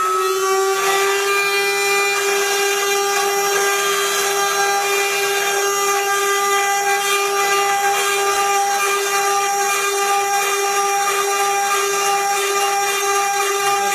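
CNC router spindle running with a steady high whine while engraving copper, over a steady hiss of cutting. The pitch rises slightly in the first second as the spindle comes up to speed, then holds.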